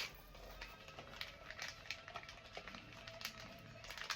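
Faint background music, with a few light clicks from packaging being handled.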